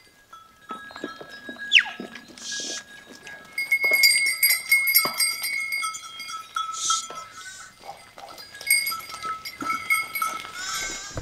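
Flock of sheep bleating now and then as it is driven along, with small bells on the animals ringing in steady tones that come and go.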